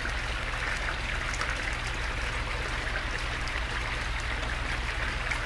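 Water running and trickling steadily from a koi pond's pumped filter and waterfall outflow into the pond, with a low steady hum underneath.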